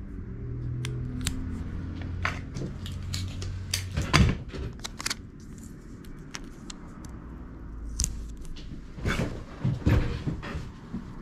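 Adhesive tape being peeled and pressed down over a paper design on a rubber carving block: irregular crinkles, rustles and small taps, loudest about four seconds in and again near the end. A low steady hum sits underneath for the first few seconds.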